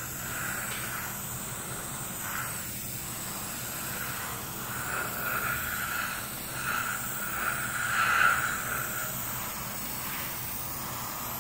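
Gravity-feed airbrush spraying metallic red model paint: a steady hiss of compressed air, louder in short passes between about five and nine seconds in.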